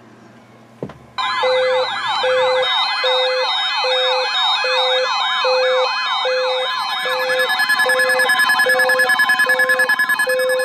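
Emergency alert alarm tones, several sounding at once: a fast wobbling siren-like tone about three times a second, a steady high tone, and a short beep about twice a second. They start abruptly just after a click about a second in and stop near the end. They signal an incoming severe thunderstorm warning.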